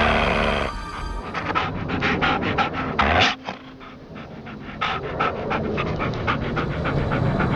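A Jack Russell terrier panting rapidly, about five breaths a second, over background music.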